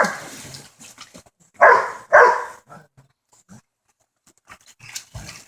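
A dog barking twice in quick succession, about a second and a half in, with a low thump near the end.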